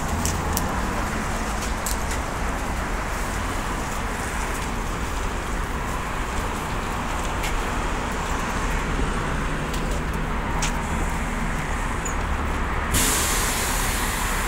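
BKM 321 trolleybus close by, with a steady hum and street noise. About 13 seconds in, a sudden hiss of released air starts from its pneumatic system.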